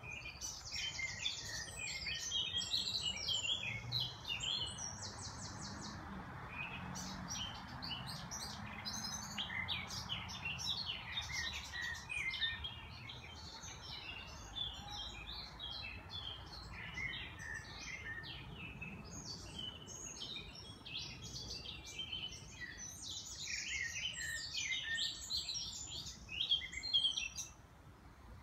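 Several songbirds singing at once in a dense spring chorus of chirps, whistles and rapid trills, over a faint steady rush.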